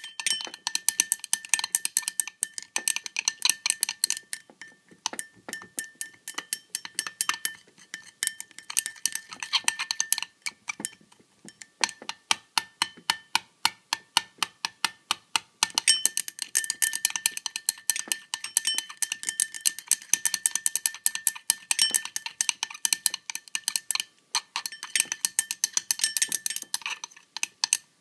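A utensil clinking rapidly against the inside of a glass cup while stirring a thick polyvinyl alcohol and water gel to break up its chunks. The clinks come a few times a second, each with a short glassy ring, and stop briefly twice.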